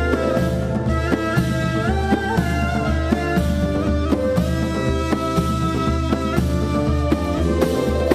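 Instrumental background music with a steady beat, a strong bass and held melodic notes.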